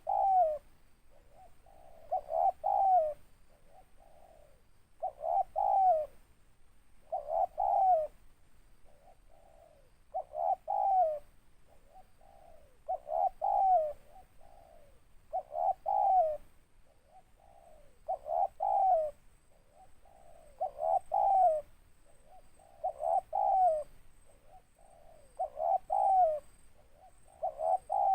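Spotted dove (tekukur) cooing over and over, one phrase of several notes about every two and a half seconds, each ending in a louder note that falls in pitch. The voice is a big, deep one.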